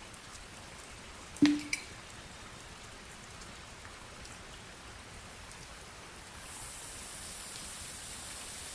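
Water drops pattering on crumpled plastic wrap, a faint sparse rain-like ticking. There is one sharp knock with a brief low ring about a second and a half in, and a steady hiss comes in about six seconds in.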